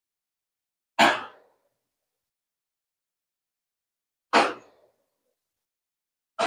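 Two short sighs from a person, one about a second in and another about four seconds in, each fading out in about half a second.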